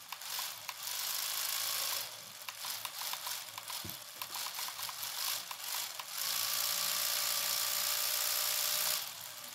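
The RC electronics and small motor in a modified LEGO Technic Dodge Charger run its model V8, revving on the boost function about a second in and again from about six to nine seconds in. Between the revs it settles to a quieter idle with a rapid, even ticking.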